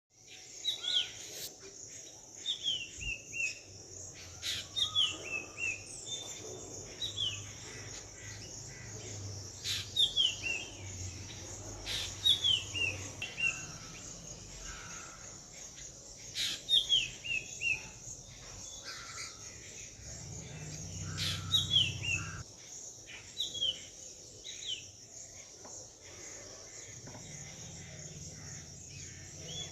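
A bird calling over and over, each call a short falling run of a few chirps, repeated every second or two, over a steady high insect drone. A few sharp clicks come through now and then.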